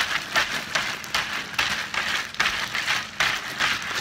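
Ice and rock salt rattling and sloshing in a plastic zip-top bag, shaken hard by hand at about three shakes a second. This is the bag-in-a-bag way of churning ice cream: the salted ice chills the cream mixture in the inner bag until it freezes.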